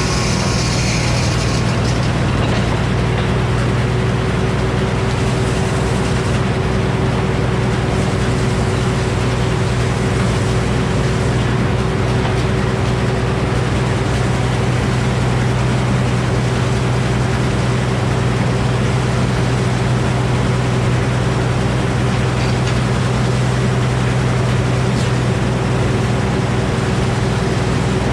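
Frick sawmill running steadily, with a loud, even machine drone that holds one pitch throughout. A brief higher hiss sounds in the first second.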